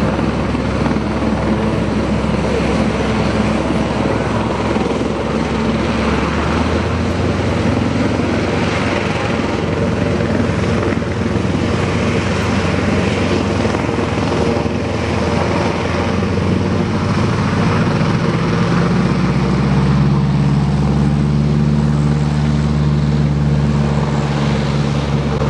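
North American SNJ-5 (Navy T-6 Texan) trainer's Pratt & Whitney R-1340 nine-cylinder radial engine and propeller running at taxi power, then opening up about eighteen seconds in, rising in pitch and growing louder for the takeoff roll.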